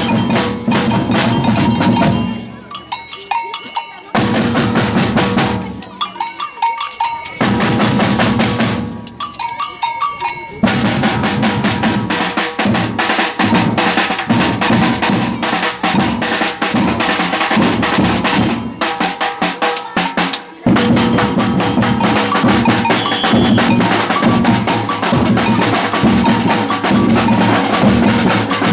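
Batucada samba percussion ensemble of bass drums, snares and bells playing together. In the first ten seconds the low drums stop three times for short breaks while the lighter, ringing percussion carries on. The full groove then runs on, with one brief stop about twenty seconds in.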